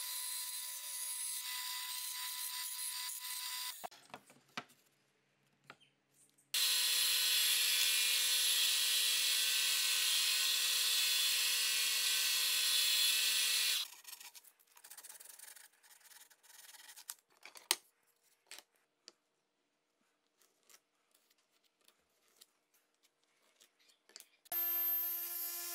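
A band saw finishes running through plywood, then stops. A bench belt sander then runs steadily for about seven seconds as plywood push-stick edges are sanded on it. Faint clicks and knocks of wood being handled follow, and music comes in near the end.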